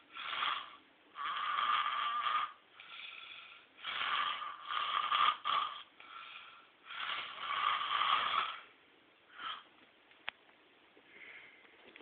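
A person snoring loud, in a run of long noisy breaths every second or two, some much louder than others. The snores die away after about nine seconds, and a single sharp click follows.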